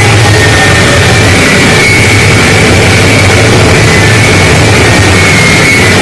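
Harsh noise music: a constant, saturated wall of distorted electronic noise with a deep rumble underneath and a thin, wavering high feedback whine on top.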